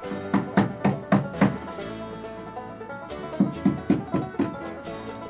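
Bluegrass-style music on plucked strings, banjo-like: a quick run of about five picked notes, ringing held notes, then a second run of picked notes.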